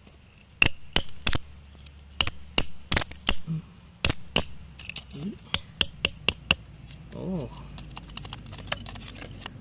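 Metal chisel tip striking and picking at rock around an embedded stone: a quick, irregular series of sharp clinks, about twenty in all, that stop roughly six and a half seconds in.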